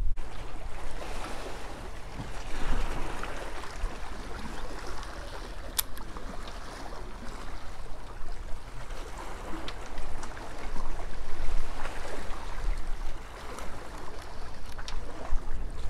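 Small waves washing and splashing against rocks at the water's edge, with wind rumbling on the microphone and a sharp click about six seconds in.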